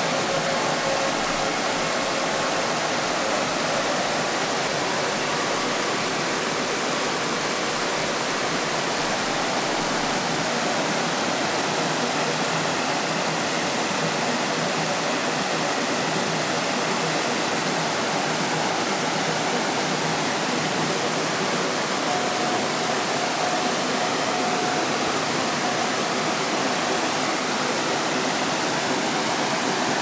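Natural stream of clear water babbling, a steady, even rush of flowing water.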